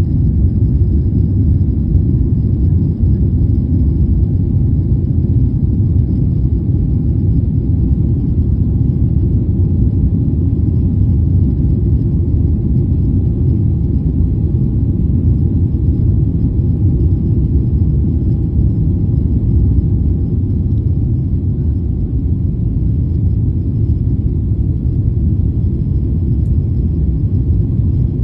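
Steady low cabin rumble of a Boeing 777 airliner climbing just after takeoff: engine and airflow noise heard from inside the cabin. A faint steady higher hum runs through the middle and fades out about two-thirds of the way through.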